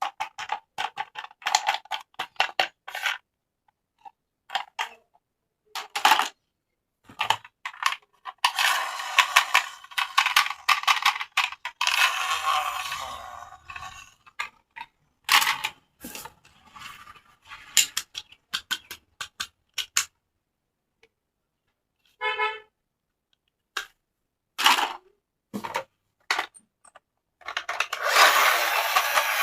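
Plastic toy parts and packaging handled during an unboxing: scattered clicks and taps, with stretches of crinkly rustling. There is a brief burst of rapid ticking about two-thirds of the way through.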